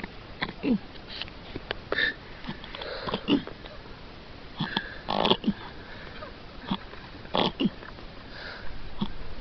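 A man asleep and snoring, with irregular snorts and wheezy breaths every second or two.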